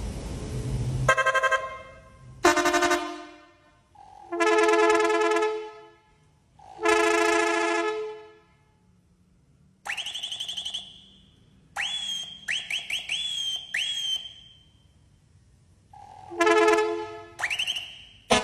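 A run of vehicle horns tested one after another: four chord-like multi-tone horn blasts of about a second each, then a whistling horn that sweeps up in pitch, followed by a string of short rising chirps, then another multi-tone blast and a rising whistle near the end.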